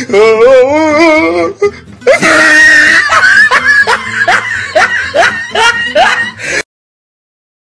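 Music with a loud, strongly wavering voice: a held vibrato line, then a shrill cry and a run of short rising vocal phrases about two a second, cut off abruptly about a second before the end, leaving silence.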